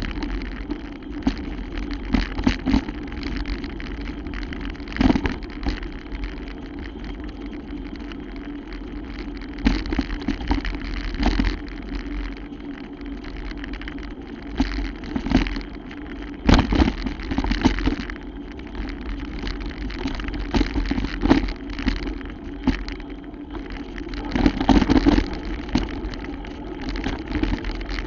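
Bicycle ridden over a rough, muddy trail: a steady low rumble of riding noise with frequent sharp knocks and rattles as the bike jolts over bumps.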